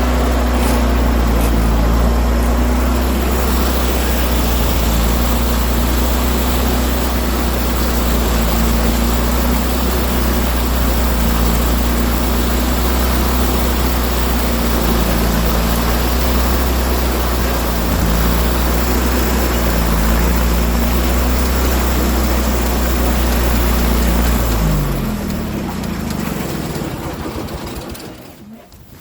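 An engine running steadily, then shut off about 25 seconds in, its pitch falling as it winds down to a stop.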